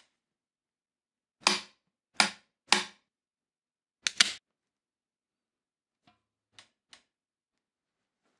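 Sharp clicks and snaps from hand tools on a bicycle's front brake caliper and cable. Three loud clicks come about half a second apart, then a quick double about four seconds in, then three faint ticks.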